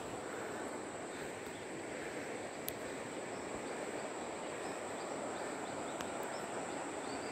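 Outdoor rural ambience: a constant rushing noise with a steady high insect drone over it, one sharp click about two and a half seconds in, and a few faint chirps in the second half.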